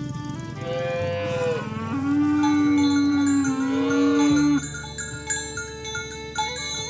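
A cow mooing: a short, higher call, then a long, louder, lower moo lasting about two and a half seconds, with chime-like tones ringing underneath.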